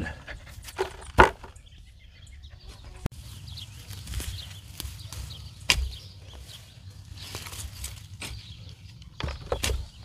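Potato fork digging through soft, damp soil, with scraping and rustling, broken by sharp knocks as potatoes are tossed into a plastic basket. The loudest knock comes about a second in, and a few more come near the end.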